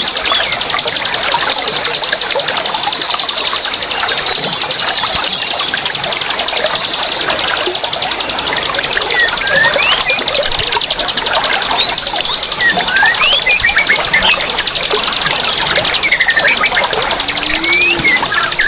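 Dense chorus of many young wild forest birds chirping and chattering over each other, with short quick chirps throughout over a steady high hiss.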